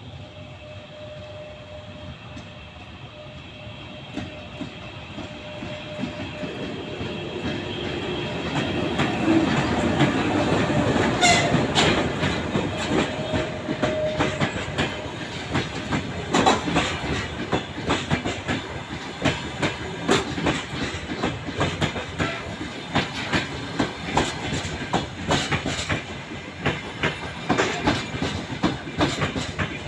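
EP1M electric locomotive and its passenger carriages coming into a station. The train grows louder over the first ten seconds with a steady whine, then a continuing run of wheel clicks as the carriages roll over the rail joints.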